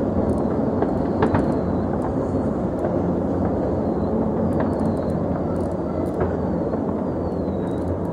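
Distant fireworks going off continuously across the city, merging into a steady dense rumble with scattered sharp cracks and faint, high, falling whistles.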